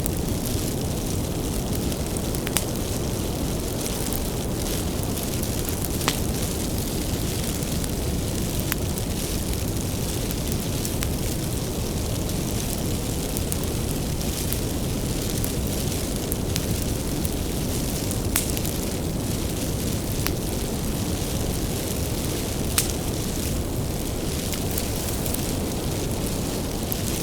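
Wood fire burning: a steady low rush of flame with frequent irregular crackles and a few louder pops.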